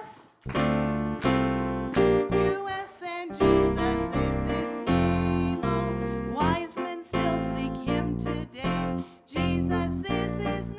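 Music: a keyboard playing chords with voices singing along, a church song for children.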